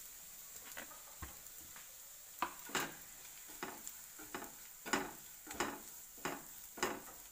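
Spatula stirring and scraping grated coconut around a nonstick pan, with faint sizzling. A run of short strokes starts about two seconds in and comes roughly every half-second to second.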